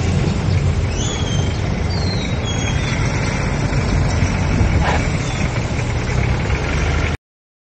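Steady wind rumble on the handlebar-mounted action camera's microphone while riding a bicycle along a street, mixed with road and traffic noise. The sound cuts off abruptly about seven seconds in.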